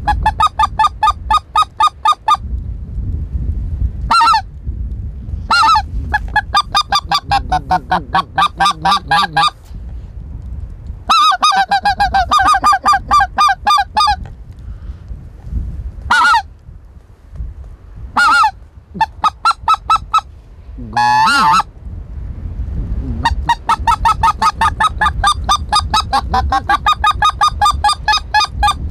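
Goose call blown by a hunter to imitate greater white-fronted geese: runs of rapid short honks, about seven a second, broken by pauses and single honks, with one drawn-out warbling note about two-thirds of the way through.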